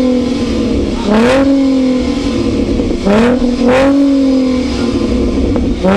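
Ford Shelby Mustang's V8 engine revved loud in four quick throttle blips: each rev climbs fast and then falls back slowly toward idle, two of them close together in the middle.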